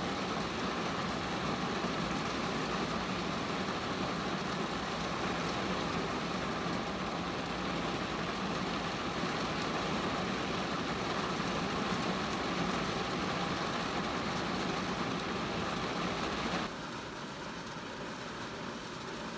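Steady rain falling on a car, with a steady hum underneath. Near the end the hum and part of the noise cut off suddenly, leaving quieter rain.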